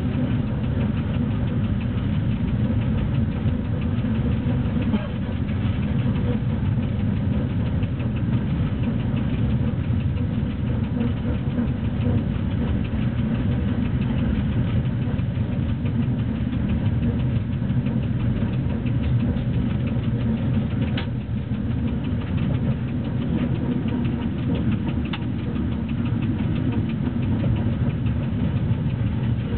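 Steady low rumble of BDZ class 46 electric locomotive 46 045 running under way with a freight train, heard inside the cab: wheels on the rails and the locomotive's running gear. Two short sharp clicks come about two-thirds of the way through and again a few seconds later.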